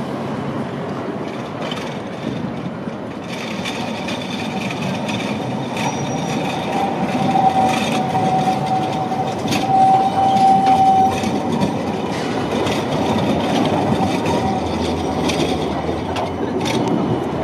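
CAF Urbos 100 tram passing close by on a curve, with running noise from its wheels that grows louder as it nears and a scatter of clicks. A thin steady wheel squeal sounds for several seconds midway through, as the wheels grind round the curved rails.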